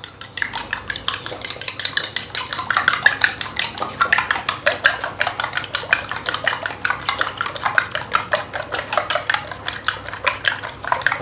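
A raw egg being beaten by hand in a glass bowl: a metal utensil clatters against the bowl in a fast, steady run of clicks, several strikes a second.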